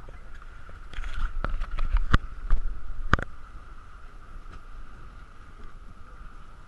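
Boat at sea: a steady hum and low rumble on the camera's microphone, with a run of sharp knocks and clatter over the first three seconds, then settling.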